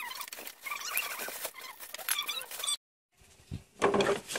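Light clicks and scraping of a screwdriver against the motorcycle's wiring and metal parts, mixed with short high chirps. The sound drops out briefly about three seconds in, and louder metallic clinks start near the end.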